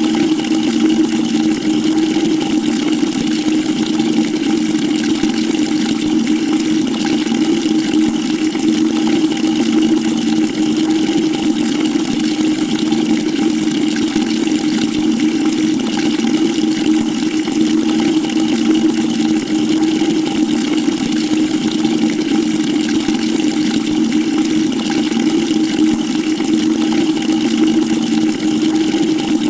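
Water running steadily from a tap into a bucket: an even, unbroken rush and splash with a steady low drone underneath.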